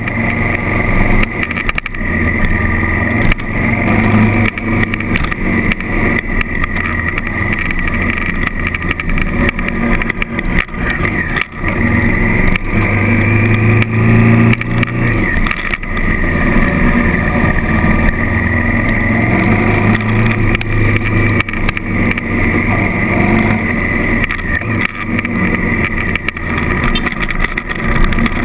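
Honda CRF1000L Africa Twin's parallel-twin engine running as the bike is ridden, its pitch rising and falling with the throttle, with occasional short knocks.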